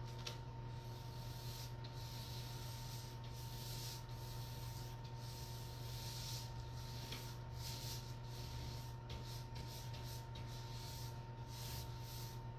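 Paint roller being worked over a wall: a scratchy hiss in repeated strokes, broken by short pauses about once a second, over a steady low electrical hum.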